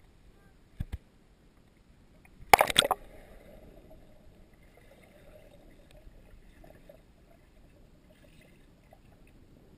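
A loud splash into a swimming pool about two and a half seconds in, as someone jumps in, followed by quiet, muffled sound heard underwater. There is a short knock about a second in.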